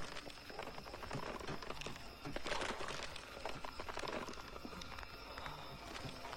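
A thin, leathery, veined membrane being handled and prodded, crackling and rustling with a dense run of small clicks, busiest a few seconds in.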